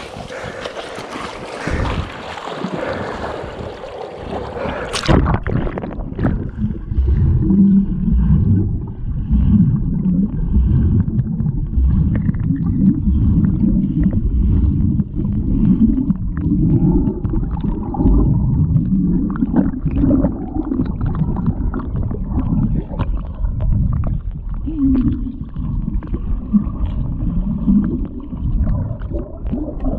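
Wading through swamp water with splashing, then about five seconds in the action camera goes under and the sound turns to muffled underwater sloshing and rumbling, with scattered knocks.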